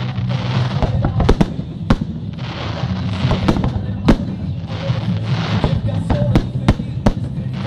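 Fireworks display: aerial shells bursting in an irregular series of sharp bangs, roughly one or two a second, with crackling between them.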